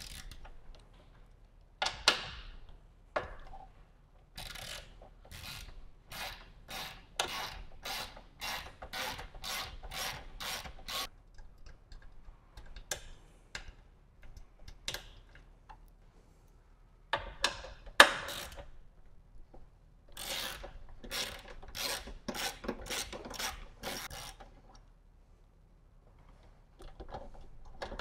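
Hand ratchet wrench with a half-inch socket clicking in two runs of quick strokes, about two or three a second, as it backs out the gas tank mounting bolts. A few louder metal clacks come in between.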